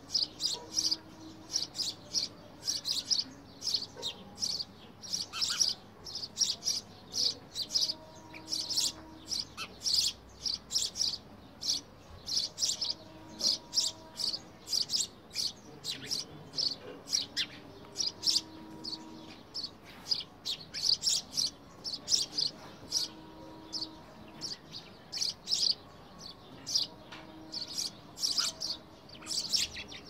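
House sparrows chirping: short, high chirps in a fast, uneven series, several a second, with brief pauses.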